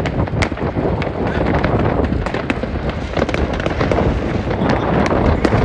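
Fireworks going off: irregular bangs and crackles from many rockets, several a second, over a steady rumble.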